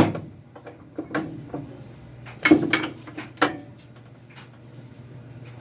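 Steel pry bars knocking and scraping against a VW Type 3 Squareback's torsion-bar hatch hinge as it is levered against heavy spring tension. There is a sharp knock at the start, a few lighter clicks about a second in, and the loudest cluster of clanks about two and a half to three and a half seconds in.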